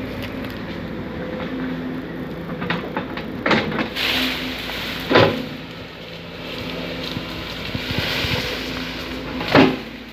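Sumitomo hydraulic excavator's diesel engine running steadily while it clears brush, with three loud sharp cracks about a third of the way in, halfway, and near the end.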